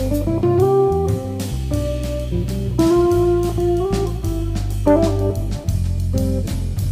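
Background music: a guitar melody over bass and a steady beat.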